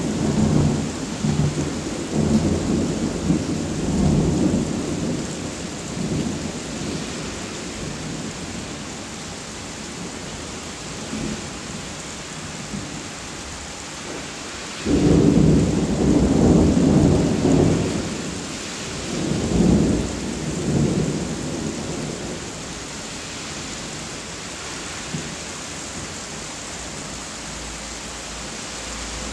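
Thunder over steady rain: a long rumble dies away over the first several seconds. About fifteen seconds in, a sudden loud peal rolls on for a few seconds, and a further rumble swells up a few seconds later.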